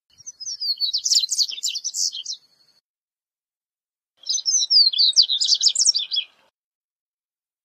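Male double-collared seedeater (corbatita) singing: two fast, high twittering song phrases of about two seconds each, with a pause of about two seconds between them.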